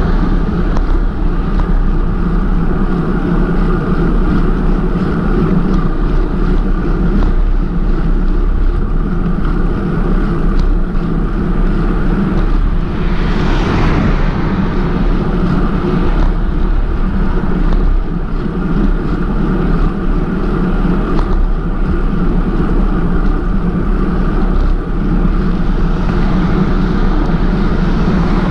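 Steady wind rushing over the microphone of a moving bicycle rider, with a louder rush swelling and fading about thirteen seconds in.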